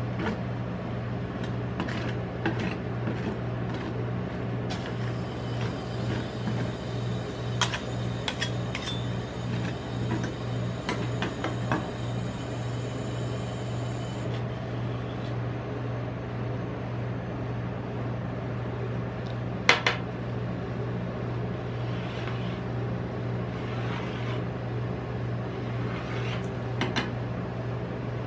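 Steady low hum of a rolled-ice-cream cold-plate machine running, with scattered clicks and scrapes of steel spatulas on the chilled steel pan. The sharpest tap comes about two-thirds of the way through.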